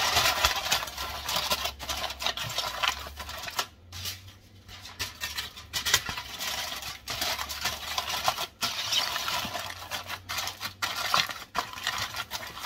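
Aluminium foil crinkling and rustling as it is pressed and crimped over the rim of a disposable aluminium pan, with a short pause about four seconds in.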